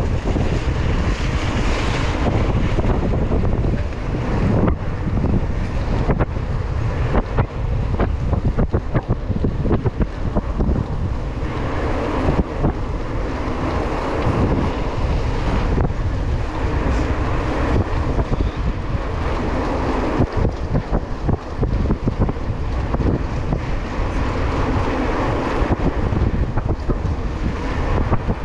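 Wind rushing over the microphone of a camera on a moving mountain bike, with the tyres hissing on wet asphalt and scattered rattles from the bike.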